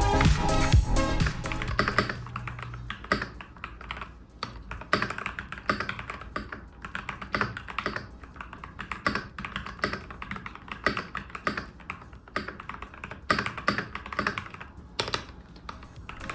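Background music for the first two to three seconds, then typing on a Keychron V5 mechanical keyboard: a long run of irregular, quick key clicks.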